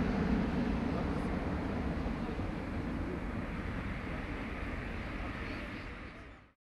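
Airbus A340-300's four CFM56 turbofan engines at climb thrust just after takeoff: a low, steady jet rumble that slowly fades as the airliner climbs away, then drops quickly to silence near the end.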